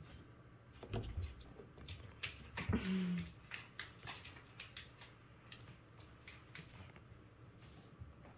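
A kitten scrabbling and pawing at a basket: scattered light scratches and taps, with a louder rustle and a short low hum about three seconds in.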